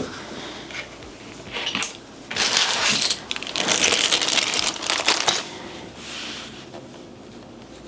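Plastic keycaps clattering and clicking while keycaps are swapped on a mechanical keyboard, in dense rattling bursts through the middle few seconds.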